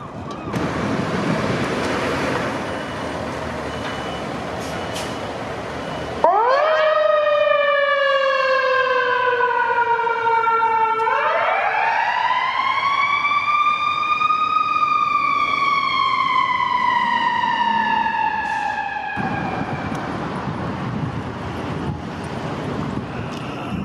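Fire engine siren: a quick upward sweep that slowly falls away, then a long wail rising over about three seconds and falling slowly before cutting off. Rushing outdoor noise comes before and after the siren.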